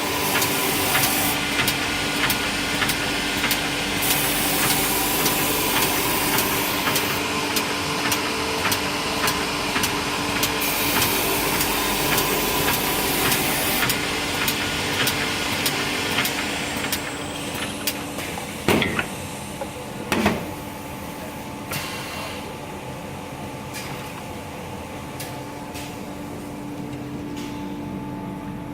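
CNC machining center running while making furniture legs: a loud steady machine noise with a constant hum and frequent clicks, which dies down about seventeen seconds in. Two knocks about a second and a half apart follow, then a quieter steady hum.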